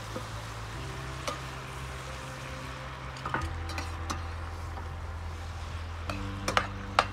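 Butter and curry sizzling in a cooking pot while being stirred, with a utensil clicking against the pot a few times, sharpest near the end.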